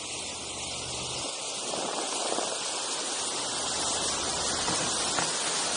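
Rushing wash of a houseboat's churning wake mixed with wind noise on the microphone, an even hiss that slowly grows louder.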